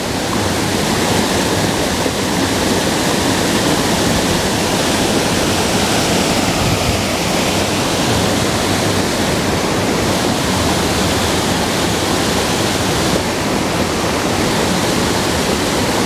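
Small creek waterfall pouring over a rock ledge into a pool: a steady, unbroken rush of falling water.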